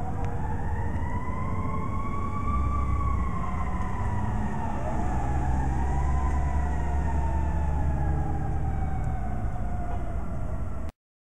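Fire apparatus sirens wailing, slowly rising and falling in pitch, with a second wail crossing the first about halfway through, over a steady low rumble. The sound cuts off suddenly just before the end.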